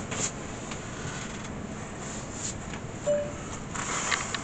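A man getting up out of a leather recliner and moving about: a click at the start, faint rustling and shuffling over steady room noise, and a louder rustle near the end.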